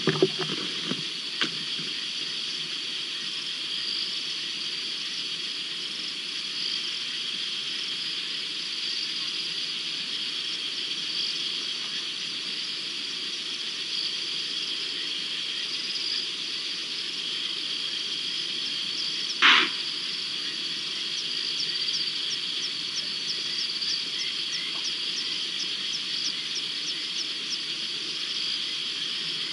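Night chorus of frogs and insects, a steady high-pitched trilling, joined in the last third by a regular clicking call repeating about twice a second. One short, loud sound stands out about two-thirds of the way through.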